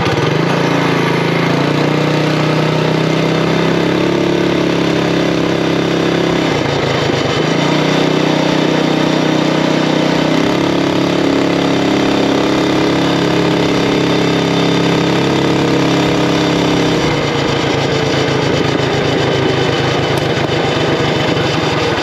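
Predator Ghost 212cc single-cylinder four-stroke engine on a mini bike, running at a steady high pitch under throttle. It dips briefly about six or seven seconds in, picks up again, then falls back near the end to a slow, pulsing low-rpm beat.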